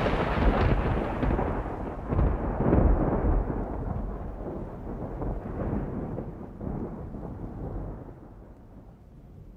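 A deep rolling rumble that swells again about two to three seconds in, then slowly dies away.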